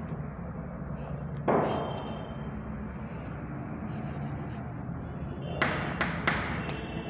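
Chalk knocking against a chalkboard while writing: one knock about a second and a half in, then three quick taps near the end, over a steady low hum.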